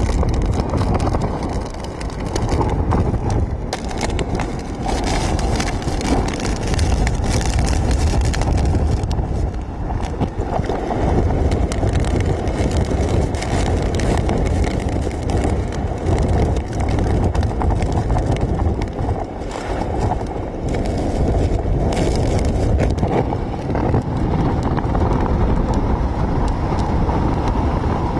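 Hurricane-force wind buffeting the microphone in a heavy, steady low rumble, mixed with storm surf surging and breaking over a seawall.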